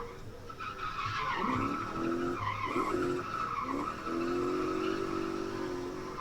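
V8-swapped BMW E28 drifting: the engine revs up again and again, then holds high revs, over steady tyre squeal.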